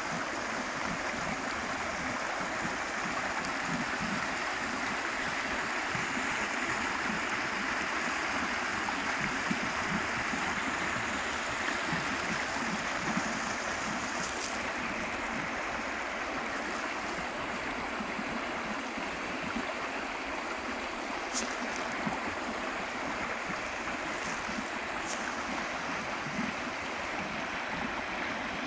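Shallow, rocky woodland stream flowing over stones and small cascades: a steady, even rush of running water.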